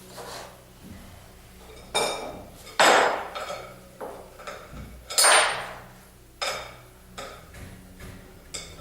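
Metal parts of a paintless dent repair stand knocking and clanking together as the stand is taken apart: several separate sharp metal knocks, the loudest about three and five seconds in.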